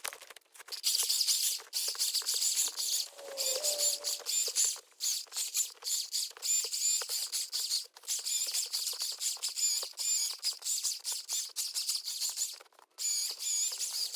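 Battery-powered Milwaukee chainsaw cutting wood: a high whine with dense crackle, dropping out briefly a few times.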